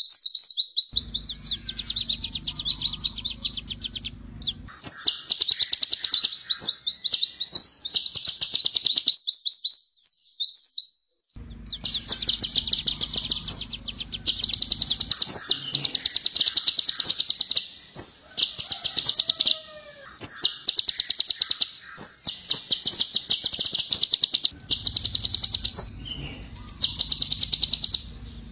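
Van Hasselt's sunbird (kolibri ninja) singing long runs of very fast, sharp, high trills, broken by brief pauses.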